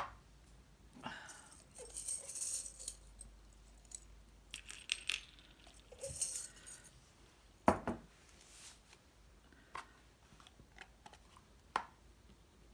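Small handling sounds of cardstock pieces: brief papery rustles and scattered light clicks and taps on the work surface, with one sharper knock a little past halfway.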